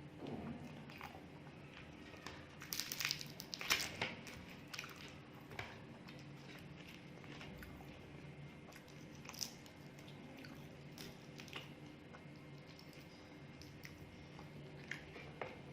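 A person chewing and biting food: scattered mouth clicks, with a louder cluster about three to four seconds in, over a steady low hum.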